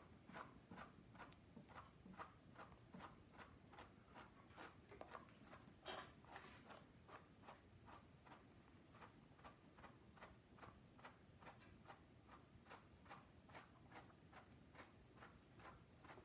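Faint, rhythmic scratching of a slicker brush's wire pins raking through a long-haired dog's coat, about three strokes a second, with one stronger stroke about six seconds in.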